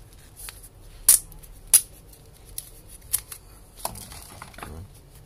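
Sharp plastic clicks and snaps as attachments are pulled off and clipped onto a Philips QG3322 multigroom trimmer, with its motor switched off. There are about six clicks, the two loudest about a second in and just before two seconds in.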